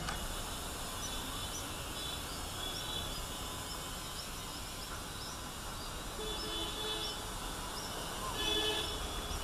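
Outdoor ambience: a steady low rumble under a run of faint, short, high chirps repeating two or three times a second, with brief distant tonal sounds about six seconds in and again near the end.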